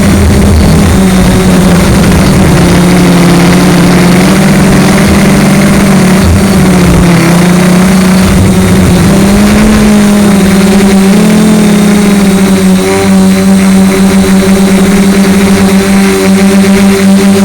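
DJI Flame Wheel F450 quadcopter's motors and propellers running in flight, recorded by a camera mounted on the frame: a loud, steady hum whose pitch wavers slightly up and down with the throttle.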